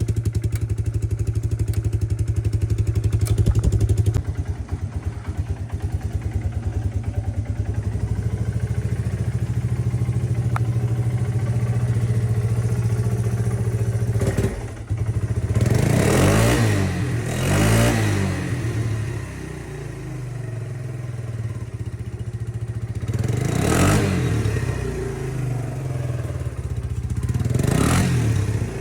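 Yamaha Grizzly 125 ATV's small single-cylinder four-stroke engine holding a steady idle after a new carburetor, fuel line and filters. It is then revved up and back down in four short blips: two close together about halfway through, another a few seconds later and one near the end.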